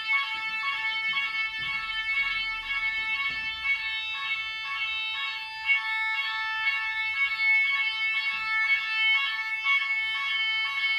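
Nugelec fire alarm sounding during a test: a loud, high-pitched electronic alarm tone with a pulsing, alternating pattern that repeats evenly without a break.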